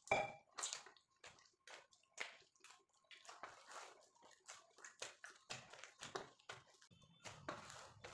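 Hands kneading soft bhatura dough in a stainless steel plate: a run of soft squishes and pats as the dough is pressed and folded against the metal, about two or three a second.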